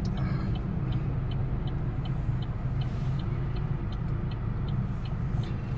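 Car cabin noise while driving: a steady low engine and road rumble, with the turn-signal indicator ticking about three times a second.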